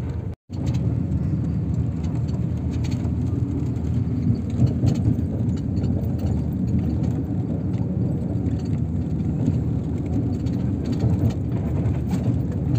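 Steady low rumble of engine and road noise heard inside a moving vehicle. The sound cuts out for a moment just after the start.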